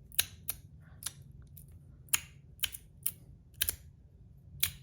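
Fidget slider clicking as its parts are slid back and forth: about eight sharp clicks at uneven intervals.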